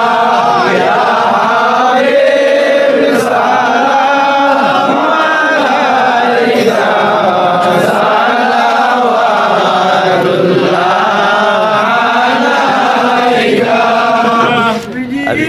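Group of men chanting together in unison, a devotional chant with the melody rising and falling, carried on without a break until a short dip near the end.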